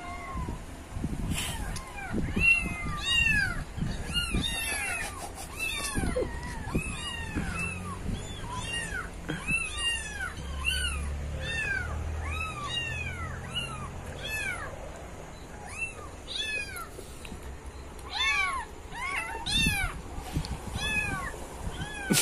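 A recording of kittens mewing over and over, played back to tease a house cat: many short, high-pitched mews about two a second, often overlapping, with a louder cluster near the end.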